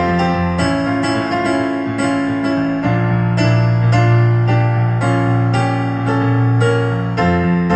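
Instrumental passage of a song with no singing: an electric piano plays repeated chords over held low bass notes. The bass note changes about three seconds in and again near the end.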